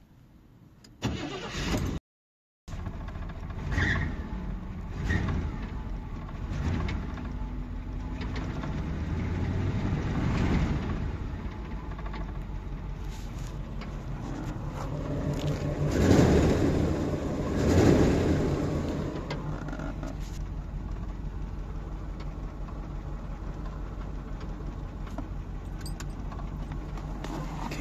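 Chevrolet Camaro Z28's V8 cranked by the starter about a second in and catching, then revved several times, with the biggest revs around the middle, before settling into a steady idle. It is a long-stored engine being run again.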